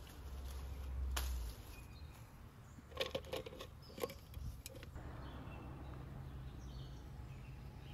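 Freshly picked oranges knocking against each other and a plastic basket: a single sharp click about a second in, then a quick cluster of knocks about three to five seconds in, over faint outdoor background.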